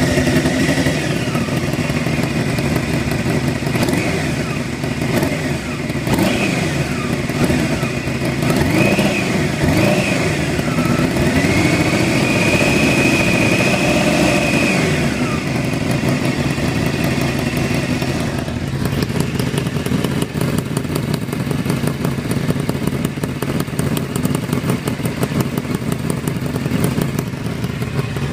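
Honda CBR600 inline-four engine revved up and down several times, then settling to a steady run, with a fast ticking whose cause the owner cannot place. The tick cannot be heard when the engine is decelerating.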